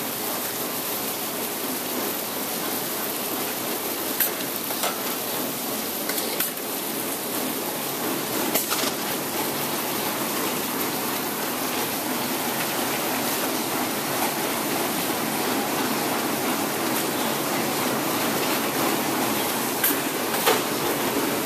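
Live crawfish grading machine running: its conveyor and sacking station make a steady, even noise, with a few sharp clicks.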